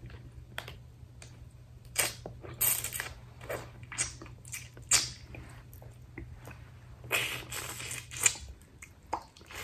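Seafood being eaten close to the microphone: chewing and crunching with a string of sharp cracks and clicks, over a low steady hum that cuts off near the end.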